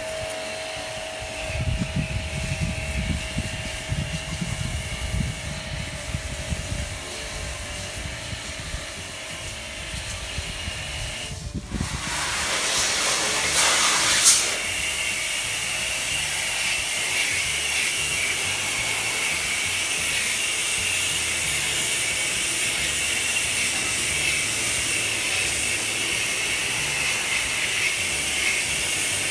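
Steady hissing water spray, as used in cleaning an air conditioner, starting about twelve seconds in after a stretch of low, uneven rumbling.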